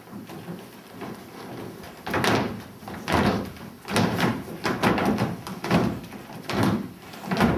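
A group of children stamping their feet in unison on a wooden stage floor. The stamps start about two seconds in and come at an even marching beat, a little faster than one a second.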